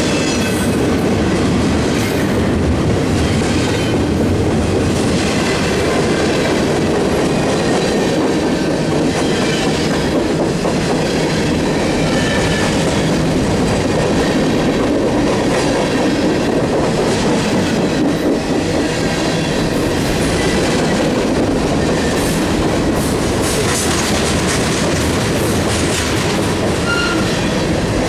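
Freight cars of a mixed train, double-stack container cars and then covered hoppers, rolling past close by in a steady loud rumble. Their wheels click in a continuous clickety-clack over the rail joints, with a few brief high squeals.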